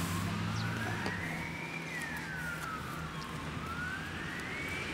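An emergency-vehicle siren wailing, its pitch slowly rising and falling in a cycle of about three and a half seconds. A low hum fades out about two seconds in.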